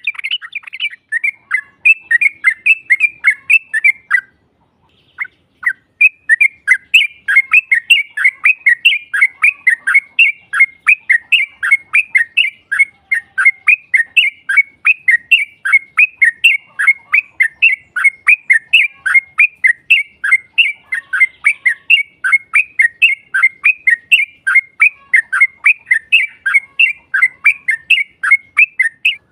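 Yellow-vented bulbul (trucukan) chattering in a long, fast run of repeated notes, about three a second, with one short break about four seconds in. It is the bird's excited rattling call, played as a lure to provoke rival bulbuls into answering.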